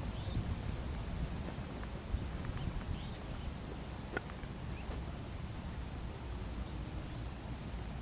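Night insects trilling in a steady, high-pitched chorus, with sharper high chirps in short groups every second or two, over a low rumble.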